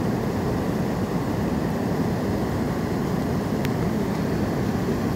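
River in high water pouring over a weir: a steady, low rush of water, with one faint click a little over halfway through.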